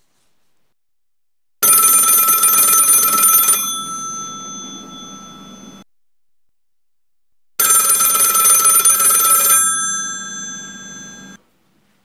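Telephone bell ringing twice, each ring about two seconds long and then fading out.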